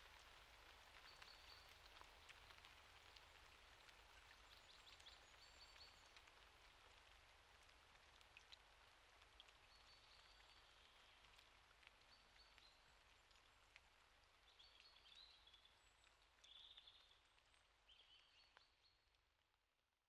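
Faint steady rain with scattered individual drops, and a few short high chirps over it, the whole fading out to silence near the end.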